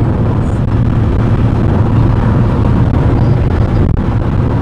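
Steady road and engine noise of a moving car heard inside its cabin, a continuous low rumble.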